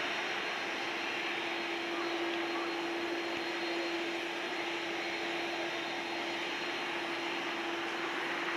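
Jet airliner engines running at a distance, a steady hiss with a steady hum in it, unchanging throughout.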